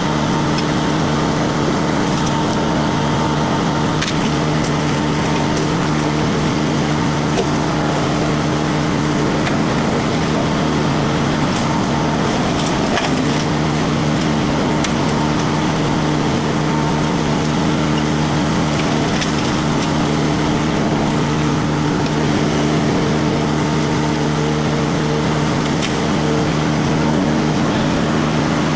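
Rippa RS06 mini skid steer's diesel engine running steadily under load while its hydraulic disc mulcher spins and chews through wood, with scattered sharp cracks and clicks from splintering wood and flying chips.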